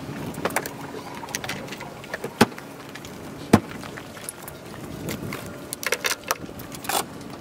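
Scattered knocks and clicks from handling gear by a car: a single heavy knock like a car door shutting, then rattling clicks as an aluminium telescopic pole is picked up off concrete and handled, over a steady outdoor background hiss.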